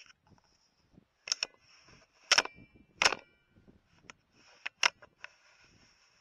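A run of sharp clicks and knocks close to the microphone, about seven over a few seconds, some with a brief metallic ring. This is handling noise on the rifle and thermal scope, not a shot. A faint high hiss runs underneath.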